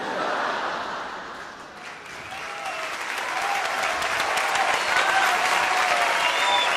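Comedy-club audience applauding after a punchline. The clapping dips briefly, then builds again, with scattered cheers and whistles over it.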